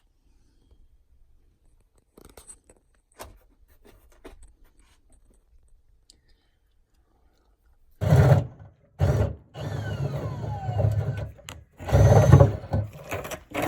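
Bundled cables being pulled through a wall, scraping and rubbing: a few faint clicks at first, then from about eight seconds in loud scraping and thuds with a few squeaky falling tones.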